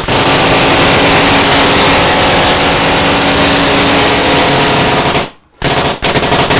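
Electric six-barrel paintball Gatling gun, fed by a small scuba tank, firing a continuous burst at about 3,600 rounds a minute, so fast that the shots run together into one sound. It is loud enough to overload the microphone. The burst stops about five seconds in, a brief burst follows, then it fires again near the end.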